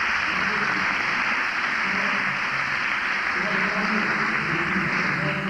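Audience applauding steadily, with voices underneath.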